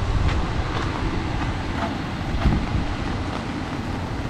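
Steady low rumble of a car on the move, road and wind noise with a few faint ticks.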